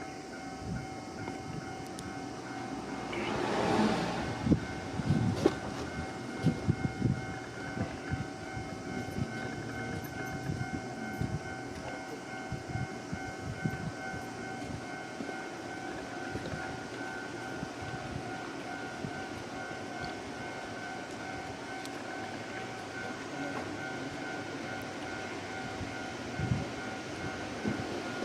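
A Sangi Railway Sangi Line train passing over a level crossing. Its wheels clatter over the rail joints, most densely in the first ten seconds or so, while the crossing's warning bell rings steadily.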